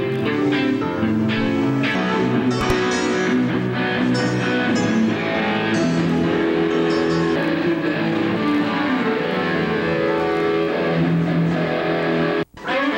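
Electric guitar played through an amplifier: picked notes and held chords ringing on. Near the end the sound cuts out abruptly for an instant.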